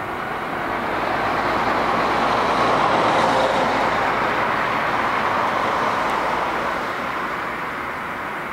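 Boeing 747-8's four GEnx turbofan engines roaring at high power as the jet rolls down the runway. The roar swells to a peak about three seconds in, then slowly fades.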